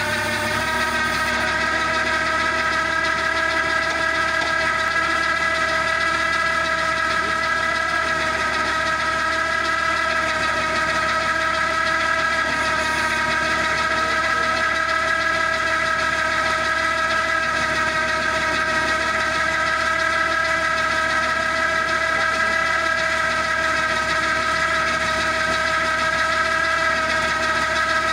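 Tractor-mounted hydraulic auger boring into soil, driven by a Massey Ferguson 9500 tractor: a loud, steady high whine from the hydraulic drive under load over the running tractor engine, unchanged throughout.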